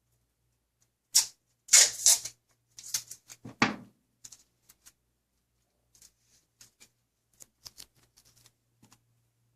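Clicks, scrapes and light clatter of computer parts being handled, loudest in a cluster between about one and four seconds in, then scattered small clicks.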